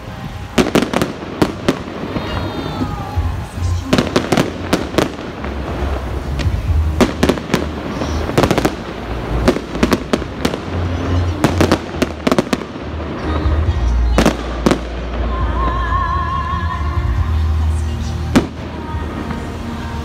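Fireworks display: aerial shells bursting in an irregular series of sharp bangs and crackles, many in quick succession, over a low rumble.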